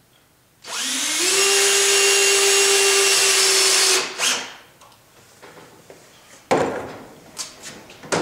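DeWalt 18 V cordless drill spinning up with a rising whine, running steadily for about three seconds and stopping, with a short second burst just after. A few knocks and clicks follow near the end as the drill is set down on the bench and a bar clamp is handled.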